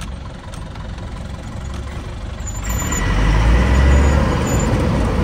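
Truck engine running, heard from inside the cab, growing clearly louder about three seconds in as the truck pulls forward.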